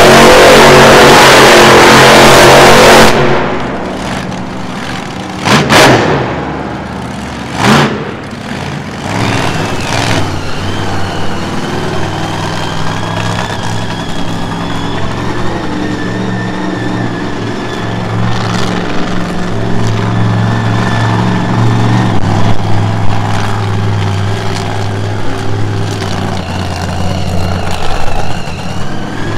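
Monster truck engine at full throttle for about three seconds, then dropping back to a lower, steady running note with two short revs a few seconds later, and the engine level building again toward the end.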